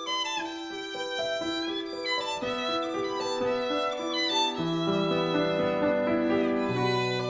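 Violin and Steinway grand piano playing together: a bowed violin melody with sliding notes over piano accompaniment, with low piano chords coming in about halfway through and again near the end.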